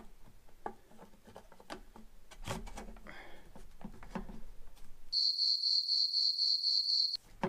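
Light clicks and knocks of steel ice-auger flighting sections being turned and slid on a hex shaft. About five seconds in, a louder steady high-pitched pulsing tone takes over for about two seconds, with the lower sounds cut out beneath it.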